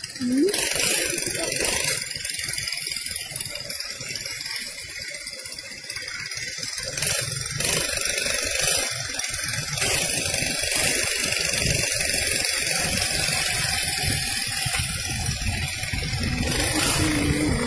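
Motorcycle riding slowly in traffic: wind rumbling on the microphone over engine and road noise. A short steady tone comes in near the end.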